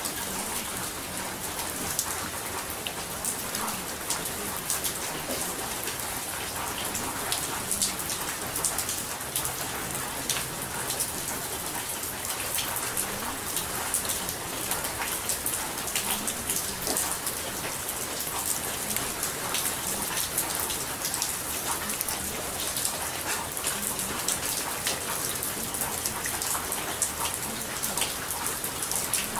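Steady rain falling, with many small sharp drop ticks through an even hiss.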